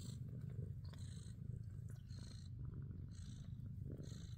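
Abyssinian cats purring steadily while their kittens nurse: a low continuous rumble, with a soft hiss that comes back about once a second.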